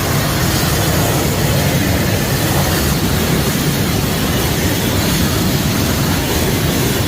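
Range Rover 2.0 diesel engine held at high revs, its exhaust blasting out a loud, steady rush while the exhaust burns out after a turbo failure.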